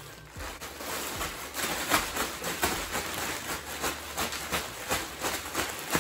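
Plastic poly mailer bag crinkling and rustling as it is handled and shaken, a dense run of crackles that picks up about a second and a half in.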